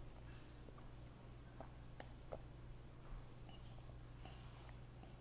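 Near silence: a child swallowing water from a bottle in long drinks, with a few faint soft gulps over a low steady room hum.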